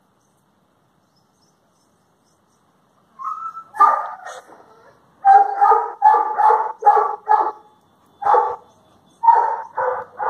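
A dog barking, about a dozen short barks in quick clusters with brief pauses, starting about three seconds in.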